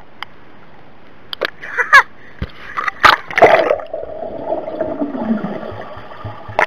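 Swimming-pool water heard from just below the surface as swimmers kick: muffled gurgling and sloshing, with a few sharp splashes about one and a half, two and three seconds in, then a steadier churning.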